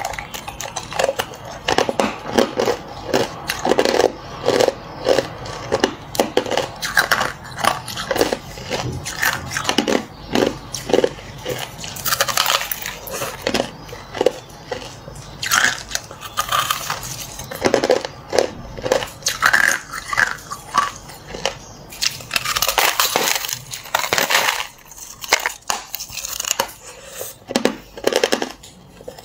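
Close-up chewing of crushed clear ice: many crisp crunches in quick, irregular succession as the ice breaks between the teeth.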